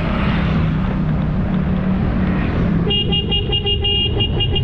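Motorbike engine running under wind noise, then from about three seconds in a vehicle horn honking in a series of short and long blasts.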